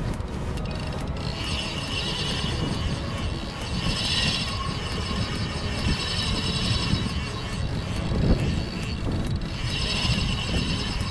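Spinning reel being cranked, its gears whirring in several spells of a second or two as the line is wound in. Wind buffets the microphone throughout.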